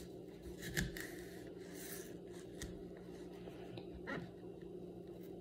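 A kitchen knife working into a whole raw apple: a few faint scraping crunches, over a steady low hum.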